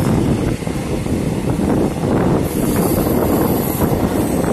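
Passenger train running along the track, heard from an open coach doorway: a loud, steady rumble of wheels on rails mixed with wind rushing past.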